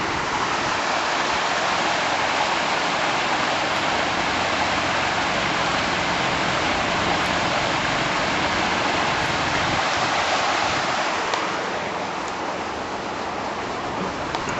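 Water gushing through a canal lock gate: a steady, loud rush of falling water that eases a little about eleven seconds in.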